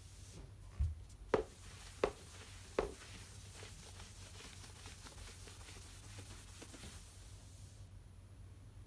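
Cloth rubbing across a wooden floor with a faint, steady hiss, broken early on by a low thump and then three sharp knocks about two-thirds of a second apart; the rubbing stops abruptly near the end.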